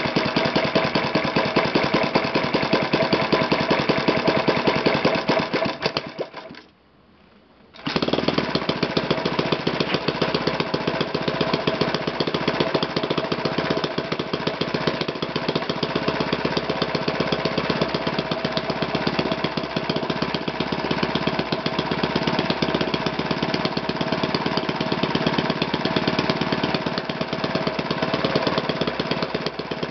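Magnum 120S single-cylinder four-stroke glow model engine running steadily on the bench, turning a propeller with a fast, even beat. The sound drops out for about a second and a half about six seconds in, then the engine runs on.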